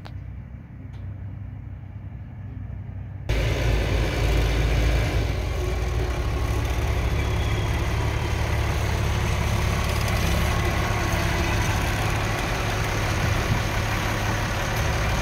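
Massey Ferguson 4270 tractor's diesel engine running loud and close while its front loader lifts and dumps a bucket of compost into a trailer. For about the first three seconds only a quieter, more distant machine hum is heard, then the tractor comes in abruptly.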